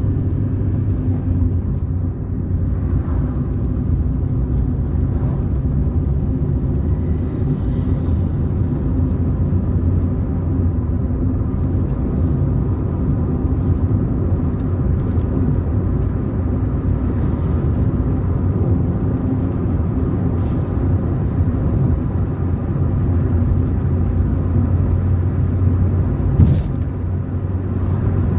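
A car being driven: a steady low rumble of engine and road noise that holds evenly throughout, with one sharp knock near the end.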